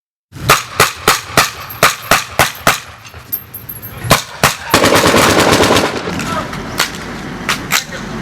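Battle gunfire sound effect starting abruptly: a run of sharp shots about three a second, then two more, then a dense continuous burst about five seconds in, the loudest stretch, dying down after about a second. A few scattered single shots follow near the end.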